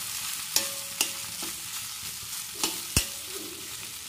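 Perforated steel spatula stirring potatoes in a black iron kadai, with a steady frying sizzle and several sharp clicks and scrapes of metal on the pan, the loudest about three seconds in.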